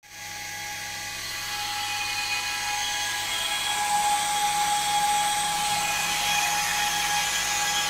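Noisy cooling fan running, a steady whine with several fixed tones over a hiss. It grows a little louder over the first few seconds. It is cooling a 400 W 432 MHz power amplifier transmitting key-down at full power.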